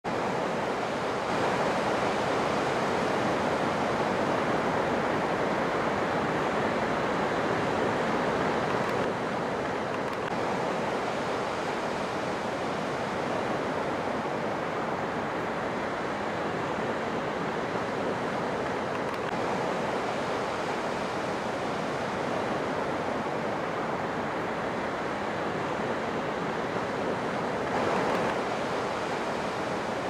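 Ocean surf washing up a sandy beach: a steady rush of breaking waves and foam. It is a little louder for the first several seconds and again near the end.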